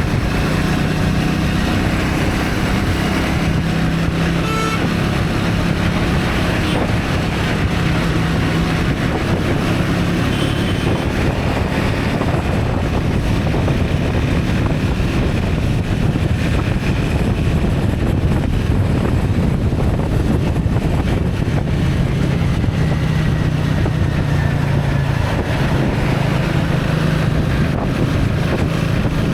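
A motor vehicle running along at steady speed, with wind buffeting the microphone. A low engine hum is stronger for the first several seconds and again near the end.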